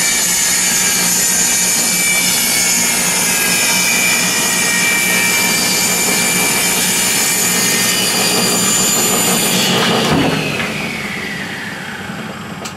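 Old table saw ripping a cedar board, running steadily under load. About ten seconds in there is a knock, then the saw is switched off and its whine falls away as the blade spins down.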